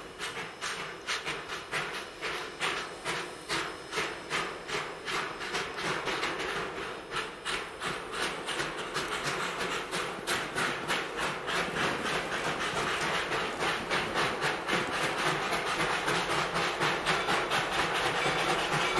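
Two-foot narrow-gauge steam locomotive working, its exhaust chuffing in an even beat of about three a second with a hiss of steam between beats, growing louder as it approaches.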